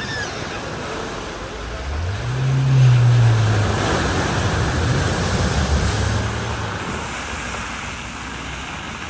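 A vehicle driving through deep floodwater, with water rushing and splashing around it. Its engine note rises about two seconds in and swells again a few seconds later.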